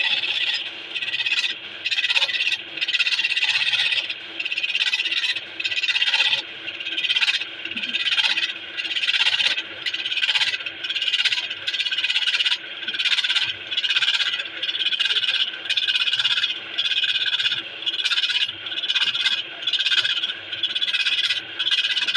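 Woodworking machine cutting wood: a rasping scrape that swells and fades in regular strokes about once a second as the cutter works the blank.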